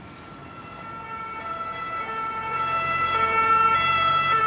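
Emergency vehicle's two-tone siren, stepping back and forth between two notes and growing steadily louder as it approaches.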